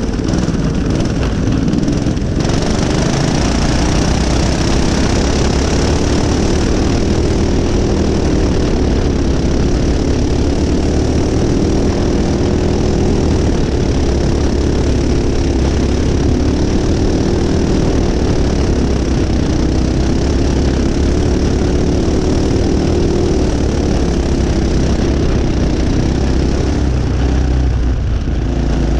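Predator single-cylinder four-stroke racing-kart engine running hard at speed, heard up close from the kart, its pitch rising and falling a little as the throttle changes.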